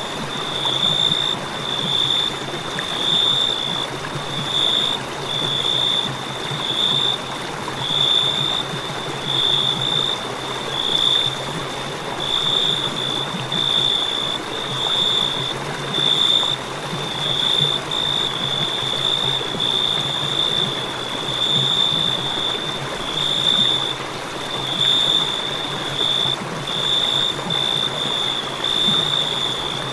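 Crickets chirping: a high, pulsing trill that repeats about once a second without pause, over a steady rushing noise.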